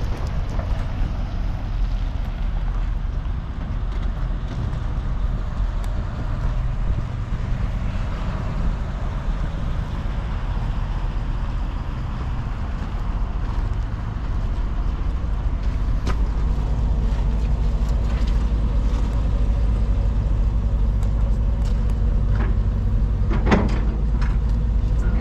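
A vehicle engine idling steadily with a low, even hum. A few sharp clicks come near the end.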